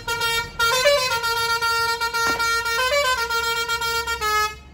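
A tour bus's Basuri 'telolet' musical horn playing a tune: loud held notes that step up and down in pitch, with short breaks between phrases.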